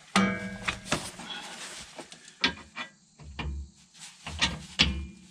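Metal clanks and taps as a rear shock absorber is worked back onto its lower mount on a Ford Crown Victoria's rear axle. It opens with one ringing clank, followed by scattered clicks and a couple of dull thumps.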